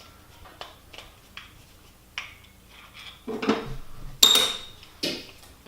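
Metal parts of a disassembled power drill clinking and clattering as they are handled on the bench: light ticks at first, then a few louder clanks, the loudest a sharp ringing clink about four seconds in.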